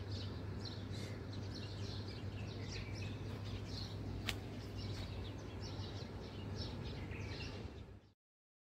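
Small birds chirping busily, many short calls one after another, over a steady low hum. There is a single sharp click about four seconds in, and the sound cuts off abruptly near the end.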